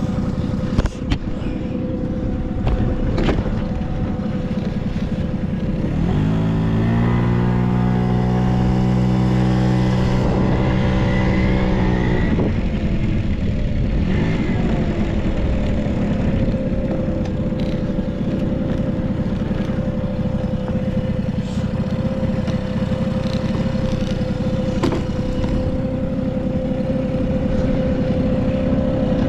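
Honda Squash AB11 scooter's small two-stroke engine idling steadily. It is revved up sharply about six seconds in, held for several seconds, then drops back to idle. The engine runs quietly with no abnormal noise.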